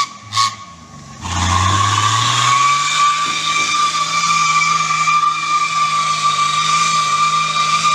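Turbocharged Toyota Land Cruiser FJ engine running under load with a steady high turbo whistle. After a short drop about a second in, the engine note climbs and then holds steady with the whistle.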